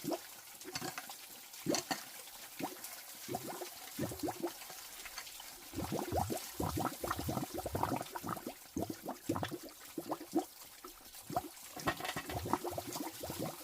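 Water splashing and sloshing in short, irregular bursts, as when water is scooped, poured or stirred by hand.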